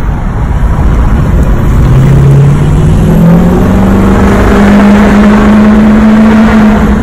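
Straight-piped 6.0L Powerstroke V8 turbo-diesel of a Ford F-250 accelerating, heard from inside the cab. The exhaust note climbs in pitch about two seconds in and then holds steady.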